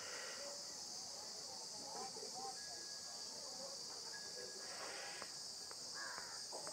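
Steady high-pitched hiss of background noise, with faint scattered sounds and a few light clicks.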